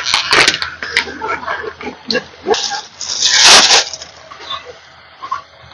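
Udon noodles dropped from a plastic packet into broth at a rolling boil in a wide camping griddle pan, then stirred with chopsticks. The broth bubbles and spatters, plastic crinkles at the start, and a loud hissing burst of boiling comes about three seconds in.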